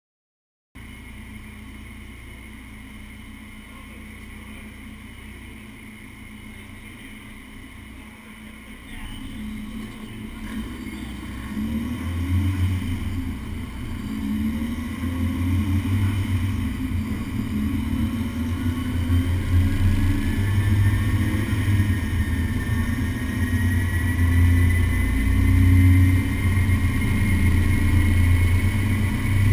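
Honda S2000's four-cylinder engine running on a chassis dyno through its aftermarket ASM exhaust, steady at first, then getting gradually louder from about a quarter of the way in as the revs and road speed build. A thin whine rises slowly in pitch over the last third.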